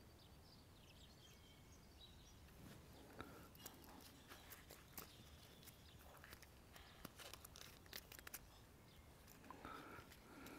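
Near silence, with faint small clicks and rattles from a steel watch bracelet being handled and fitted onto its cushion, and faint bird chirps in the first couple of seconds.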